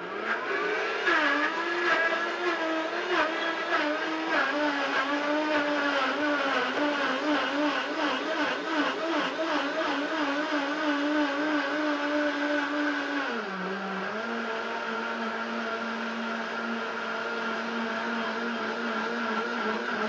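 Vitamix A3500 blender starting up and running on its highest speed, puréeing whole apple pieces into applesauce with the tamper pushing them down: a loud, steady motor whine whose pitch rises as it starts and wavers under load, with chunks knocking against the jar for the first few seconds. About thirteen seconds in, the pitch drops a step and then holds steady.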